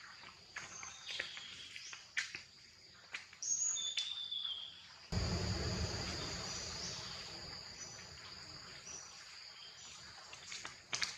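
Forest ambience: insects droning in a steady high pitch, with a few short bird chirps and scattered twig clicks. About five seconds in, a low rumbling noise comes in suddenly and slowly fades.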